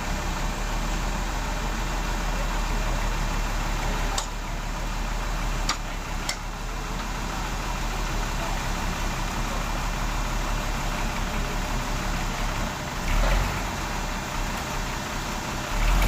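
Diesel engines of a Sumitomo HA60C asphalt paver and a dump truck running steadily, with the truck's rear wheels backed against the paver's hopper. Three sharp clicks come between about 4 and 6 seconds, and a short low surge a little past 13 seconds.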